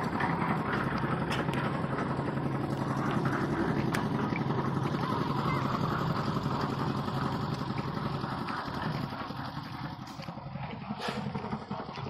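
An engine running steadily with a low hum, growing quieter from about eight seconds in, with a few faint clicks over it.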